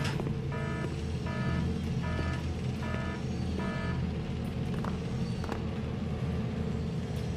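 Film soundtrack: a steady low rumbling drone with five short beeping tones about 0.7 s apart over it, which stop about four seconds in, then a few faint clicks.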